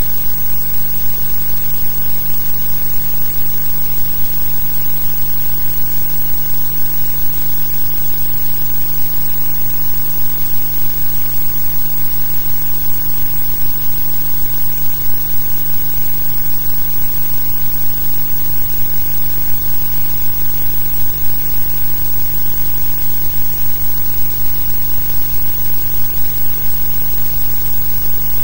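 Steady electrical hum with even hiss and no other sound: the noise floor of a blank soundtrack on silent archive film.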